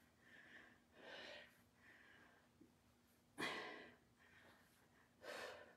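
A woman's forceful exhales while doing kettlebell swings, one burst of breath per swing about every two seconds. There are three, and the middle one is the loudest.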